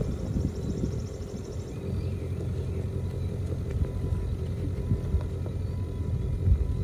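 Feed truck's engine running as the truck moves slowly along the feed bunk, a steady low sound.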